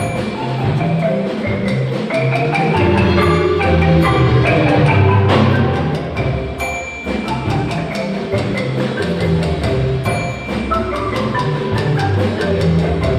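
Marimba music with rapid clacking like typewriter keys running through it and a small bell dinging a couple of times, as on a typewriter's carriage return.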